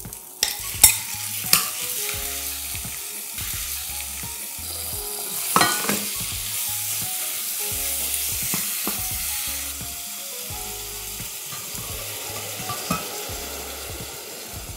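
Raw chicken thigh pieces sizzling in hot oil in a stainless steel saucepan with shallots and ginger, stirred with a wooden spoon. A few sharp clacks of the bowl and spoon against the pan come in the first two seconds, then a steady sizzle with one louder flare about six seconds in.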